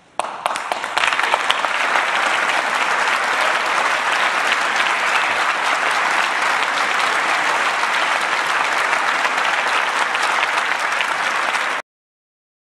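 Large theatre audience applauding, swelling over the first second or so and then holding steady. Cuts off suddenly near the end.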